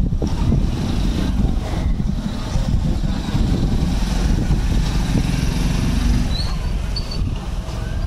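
A loud, steady low rumbling noise, with a few short, high bird chirps about six and seven seconds in.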